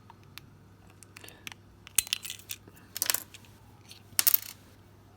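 Small hard clicks and short metallic rattles of an opened key fob's parts being handled: the coin-cell battery and the loose battery clip that has broken away from the circuit board. Light ticks throughout, with three louder clattery bursts about two, three and four seconds in.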